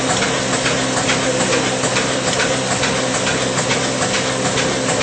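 A fifty-year-old stationary diesel engine running steadily under load with a regular knocking beat, belt-driving a flour mill (aata chakki) that whirs along with it.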